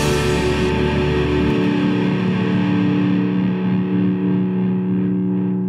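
Rock soundtrack music ending on a held, distorted electric guitar chord that rings on and slowly fades, with the deep bass dropping out about a second and a half in.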